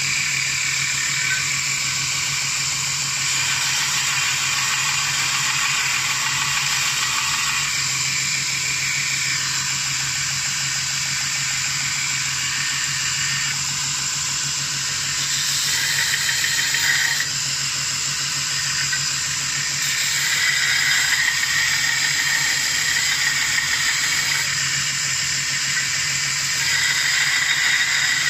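Belt sander running with a steady hum while the steel jaws of a pair of end-cutting pliers are ground on the belt. A harsher rasping grind comes in passes: about halfway through, again around twenty seconds in, and near the end.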